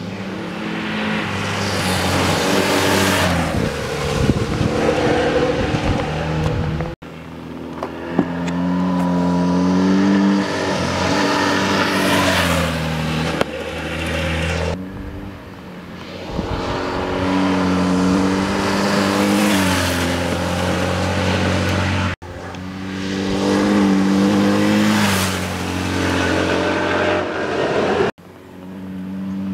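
BMW R1100GS air-cooled boxer twin engine, the motorcycle ridden hard through bends. The engine note rises and falls with the throttle, each pass swelling and fading away, and it is broken three times by abrupt cuts.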